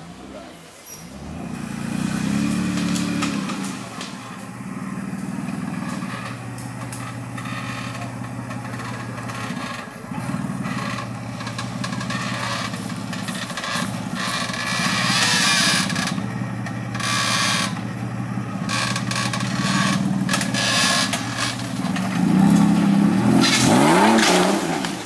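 Off-road trial buggy's engine running under heavy load on a steep dirt slope, holding steady revs for most of the stretch. Near the end it is revved up and down several times.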